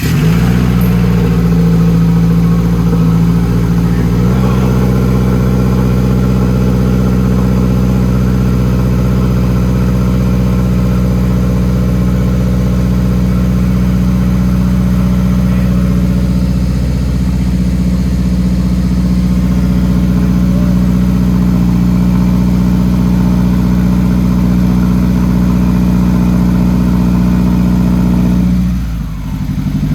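2017 Subaru WRX's turbocharged 2.0-litre flat-four, rebuilt after a seizure, fires right at the start and runs at a steady fast idle, loud and raw with no exhaust past the catalytic converter. Its pitch settles slightly lower about four seconds in, and it dips briefly in loudness near the end.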